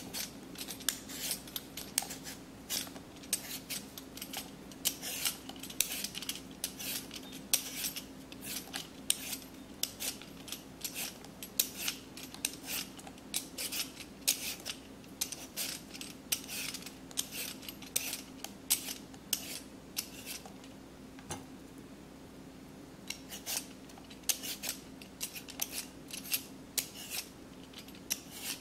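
Vegetable peeler scraping the skin off a yellow potato in quick repeated strokes, about two a second, with a short pause about two-thirds of the way through.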